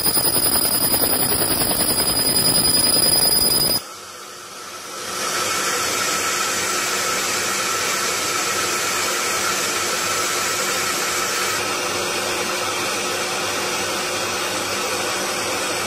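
Laser rust-removal cleaner firing on a rusty steel bar: a rapid buzzing crackle with a high, steady whine as the beam ablates the rust. It cuts off suddenly about four seconds in, and after a short lull a steady machine hiss takes over.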